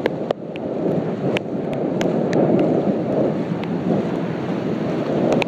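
Wind buffeting a phone's microphone over the splash and wash of shallow sea surf as someone wades through it, a steady rushing noise broken by a few sharp ticks.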